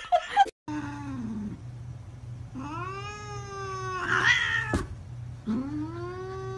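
Cat yowling: three long, drawn-out yowls, the last two rising and then holding their pitch, over a low steady hum. There is a single sharp click near the end of the second yowl.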